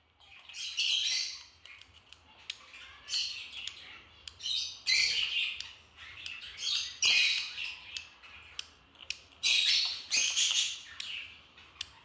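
Young budgerigar chick giving repeated harsh, raspy begging calls, in short bursts of up to a second or so, as a cockatiel preens and feeds it, with a few sharp clicks between the calls.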